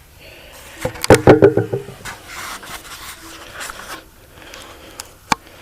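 A loud clatter of knocks and rattles about a second in, then faint scraping and one sharp click near the end.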